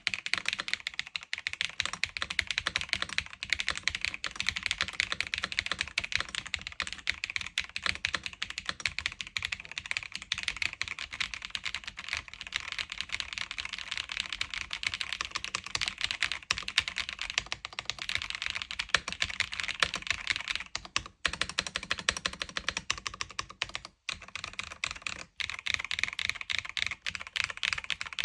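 Fast, continuous typing on a custom mechanical keyboard with Creamy Yellow U1 linear switches: a dense stream of keystroke clacks, broken by a few short pauses about three quarters of the way through.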